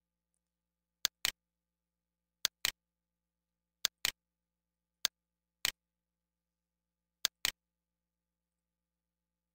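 Computer mouse button clicked five times, each click a sharp press followed a moment later by its release, about one to one and a half seconds apart.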